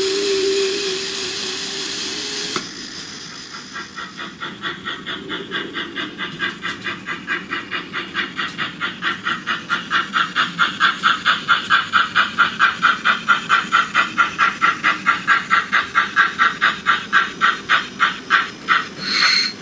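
A steady engine drone that cuts off about two and a half seconds in, then a steam locomotive chuffing at about three beats a second, growing louder, with a short whistle blast near the end.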